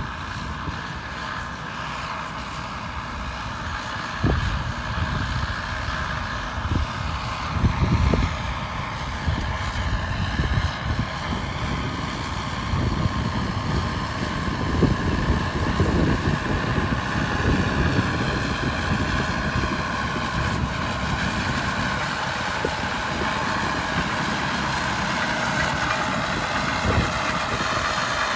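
Caterpillar D6R2 bulldozer at work: its diesel engine running steadily with a whine, under an uneven low rumble and several heavier low knocks.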